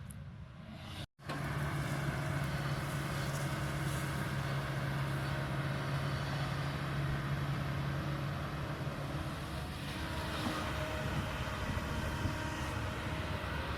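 Kobelco 220 excavator's diesel engine running steadily with a low hum. The sound cuts out briefly about a second in, then picks up again.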